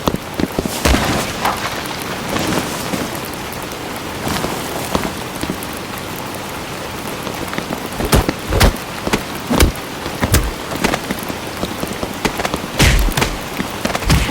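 Homemade fight sound effects: a steady, rain-like hiss with a string of sharp hits and thumps, clustered most densely in the second half.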